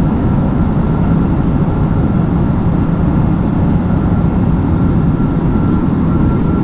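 Airliner cabin noise: a steady, loud, even rumble of the jet engines and rushing air, with a faint thin steady whine above it.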